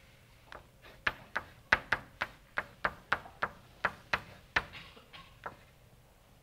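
Writing on a lecture board: a run of sharp taps and clicks, about three a second, as an equation is written out, stopping shortly before the end.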